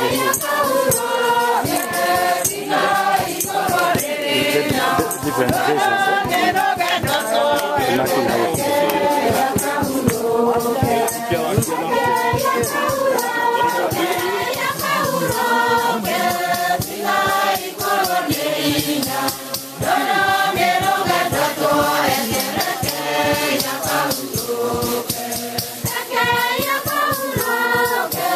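A group of voices singing a hymn together, with a shaken rattle keeping time.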